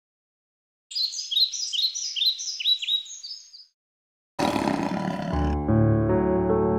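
A quick run of high chirping notes, each sweeping downward, lasting about three seconds; after a short pause, a sudden swell of noise leads into piano music.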